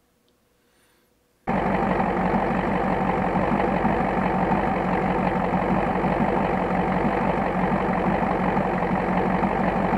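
1985 Ford F350's 6.9 IDI V8 diesel engine rumbling steadily, cutting in suddenly about a second and a half in after a brief near silence.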